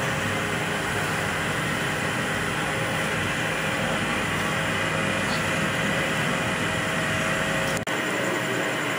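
Steady electric motor hum and whir of kansa (bronze) thali foot-massage machines running, their motor-driven bronze plates turning under bare feet. A brief dropout about eight seconds in, after which the hum goes on with less low rumble.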